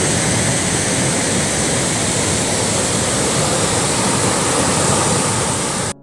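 Iguaçu Falls: the steady rush of a large waterfall's falling water, cutting off suddenly at the very end.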